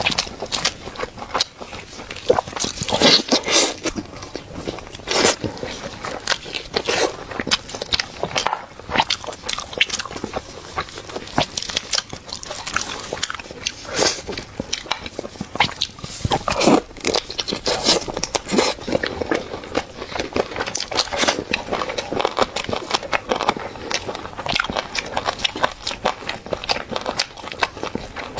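A person biting and chewing a chicken leg close to the microphone: a dense, irregular run of crisp crunches and crackles with short pauses between bites.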